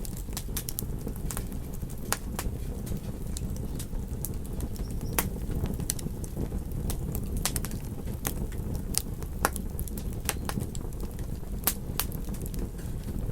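Fire in a fireplace crackling: irregular sharp pops and snaps over a steady low rumble of the burning.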